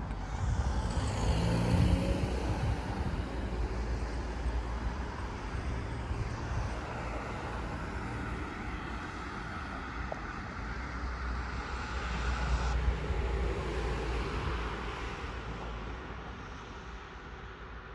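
Road traffic: cars passing on a town street, a steady rush of tyres and engines that swells as a vehicle goes by a couple of seconds in and again around twelve seconds in, then fades.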